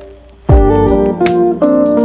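Background music with guitar: a brief pause, then about half a second in a deep bass hit and sustained guitar notes with sharp beats.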